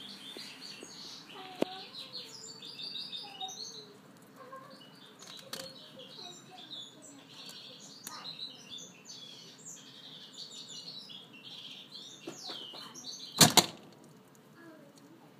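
Mini lop rabbit chewing fresh anise fronds up close: a fast, continuous crisp crunching. About thirteen seconds in come two loud knocks.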